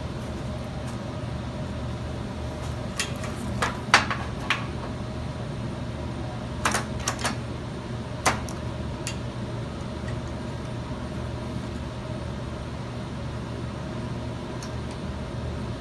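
A few sharp metallic clicks and knocks, mostly in two clusters about a third and halfway through, as the cast-aluminum blow gun and clamps are handled and positioned for welding. A steady hum from the switched-on TIG welder runs underneath.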